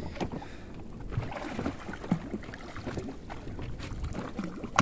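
Small boat at sea: water slapping against the hull and wind on the microphone, with scattered light knocks.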